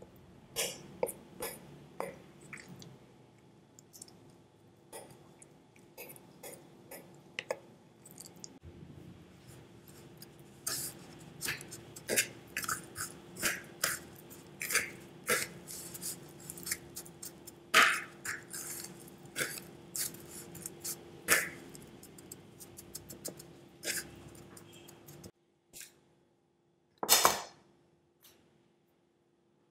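A metal fork and tongs tap and scrape on a ceramic plate as chicken breast is dragged through beaten egg and then pressed into crushed tortilla chips, the chip crumbs crackling. The clicks come in irregular runs, thickest in the middle. Near the end there is one short louder clatter.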